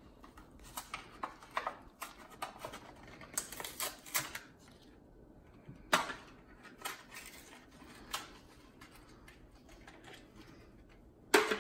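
Hot Wheels blister-card package being opened by hand: irregular crackling, clicking and tearing of the plastic blister and cardboard backing, with a louder burst near the end.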